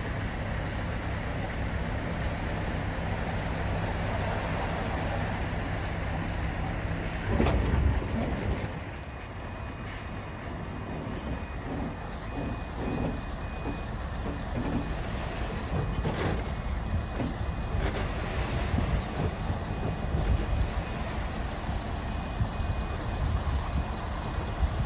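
Heavy truck's diesel engine running while it reverses to push the extendable semitrailer closed. A loud burst of air hiss, like air brakes, comes about seven seconds in. Then a reversing alarm beeps steadily, with even, regular beeps.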